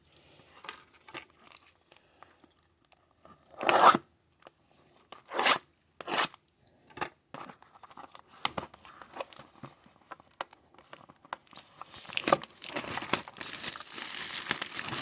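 A sealed box of trading cards being torn open by hand: a few sharp rips about four, five and a half and six seconds in, then continuous crinkling of the packaging near the end.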